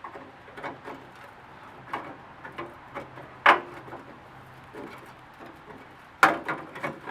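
Steel pry bar knocking and scraping against rusted sheet metal of a pickup door bottom, working a spot-welded panel loose: scattered clicks, one sharp metallic knock about three and a half seconds in, and a quick run of clinks near the end.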